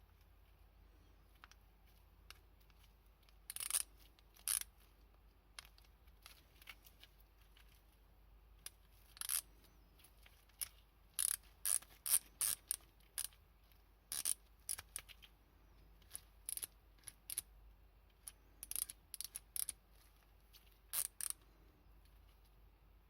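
Light, sharp metallic clicks in scattered short runs, some a few to the second, from a Nepros NBRA3 3/8-inch ratchet adapter being handled and ratcheted by hand.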